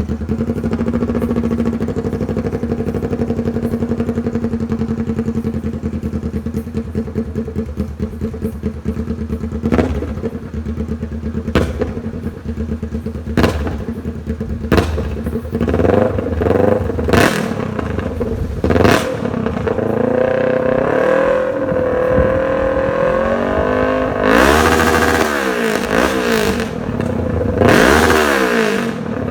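Kawasaki Ninja 650's parallel-twin engine through a short, unmuffled GP straight-pipe exhaust. It idles steadily at first, then is blipped repeatedly with sharp cracks between the blips, and is revved high twice near the end.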